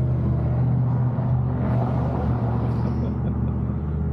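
Motor vehicle engine idling steadily, a low even hum.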